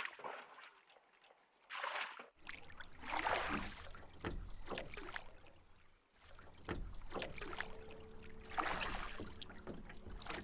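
Water splashing and sloshing in irregular strokes, as of a small boat being rowed, broken by two brief silences.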